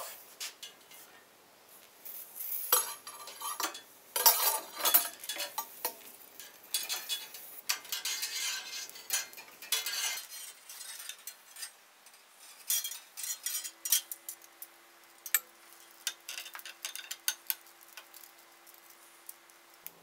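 Insulation being peeled by hand off a length of 12-gauge solid copper wire. Bursts of scraping and rustling come in the first half, then scattered light clicks as the bare wire is handled.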